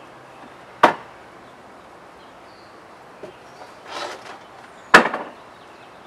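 Metal mailbox lid clanking sharply about a second in, a brief rustle and scrape around four seconds as a hand rummages inside the box, then a second, louder metallic clank near five seconds.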